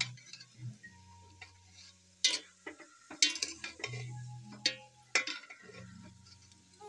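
Metal spoon stirring thick kheer in an aluminium pot to mix in the sugar, knocking and scraping against the pot's sides several times. A low steady hum runs underneath.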